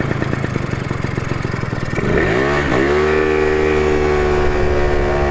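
Two-stroke scooter engine running rough and uneven at low revs. About two seconds in it revs up, dips for a moment, then holds a steady higher pitch that slowly climbs as it accelerates.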